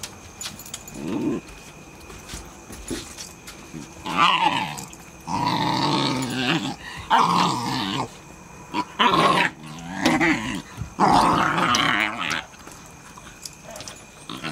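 Puppies growling as they play-wrestle: rough play-growls in several bouts of a second or two each, starting about four seconds in.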